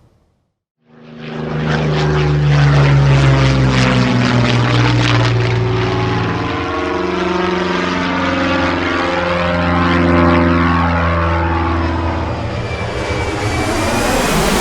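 Propeller-driven aeroplane engine flying past, coming in about a second in after a brief silence and holding a steady, deep engine note whose tone shifts as it passes.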